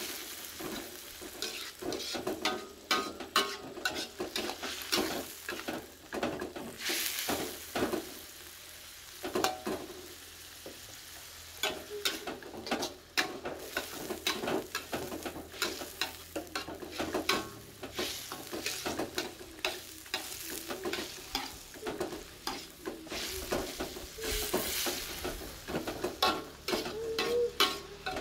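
Spinach stir-frying in oil in a metal wok: a metal spatula scrapes and clacks against the pan over a steady sizzle. The sizzle swells twice, once about a quarter of the way in and again near the end.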